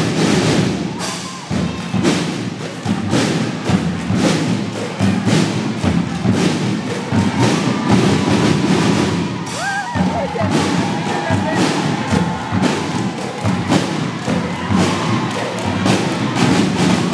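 Children's marching drum band playing: drums beating a steady rhythm of about two strokes a second, with the ringing tones of marching bell lyras.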